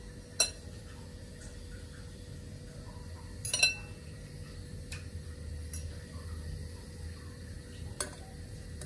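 A metal fork clinking against a glass mixing bowl while bread slices are soaked and pressed into egg mixture, with soft wet stirring between the clinks. There are about five sharp, ringing clinks, the loudest a quick double clink about three and a half seconds in, over a low steady hum.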